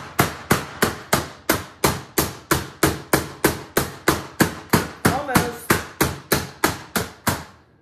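Flat face of a metal meat mallet pounding boneless chicken thighs sealed in a plastic bag on a cutting board. The whacks are steady and even, about three a second, and stop just before the end.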